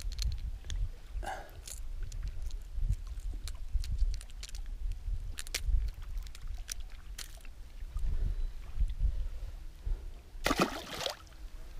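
Wind buffeting the microphone, with scattered small clicks and knocks. About ten and a half seconds in there is a short splash as a caught bass is let go back into the lake.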